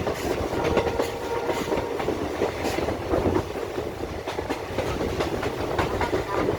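Train running along the track, its wheels clattering steadily over the rails in a continuous rattle of short clicks over a rumble.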